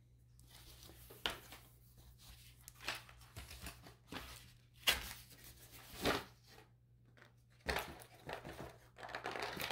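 A picture frame being handled: irregular rustling and crinkling of its paper insert, with a few sharp clicks and knocks from the frame.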